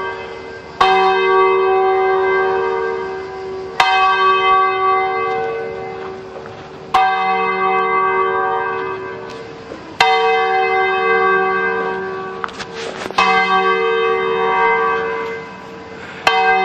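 A single church bell tolling slowly: six strokes about three seconds apart, each struck at the same pitch and left to ring on and fade before the next.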